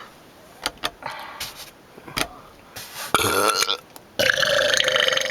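A person burping: a shorter burp about three seconds in, then a long, loud burp of fairly steady pitch starting about a second later.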